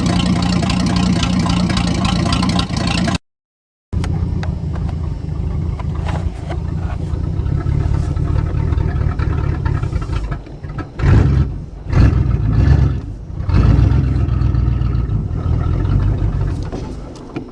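Old Pontiac car engine running unevenly just after a cold start without a working choke, with a few rev surges about 11 to 13 seconds in. It drops lower near the end.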